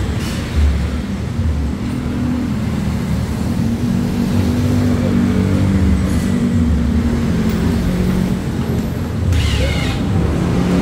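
A motor vehicle engine running steadily with a low rumble, and a short, sharper noise about nine seconds in.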